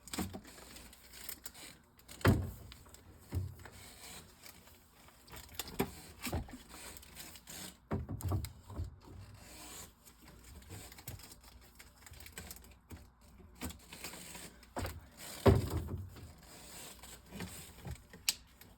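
Plastic Gatorade bottles being pulled off their packaging and set down on fridge shelves: irregular knocks and thumps with rustling in between, the loudest thump about two-thirds of the way through.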